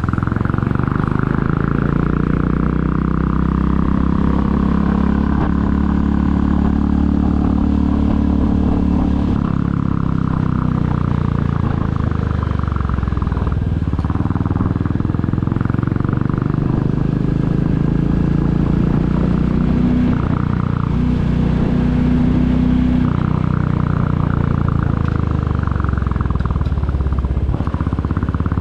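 Royal Enfield Classic 350's single-cylinder engine pulling the bike along on the road, its note climbing under throttle and dropping back at gear changes, about a third of the way in and again near the end.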